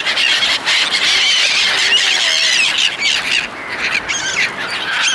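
A flock of seagulls calling over one another in a dense, high-pitched chorus of many short overlapping cries, thinning out a little just past halfway.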